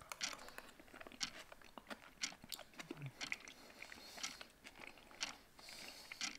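A person chewing a mouthful of saucy takeaway duck with its skin, close to the microphone: irregular crunches and wet mouth clicks.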